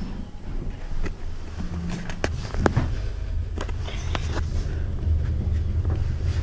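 Lift car of a 1980s Otis lift travelling: a steady low rumble with a few light clicks.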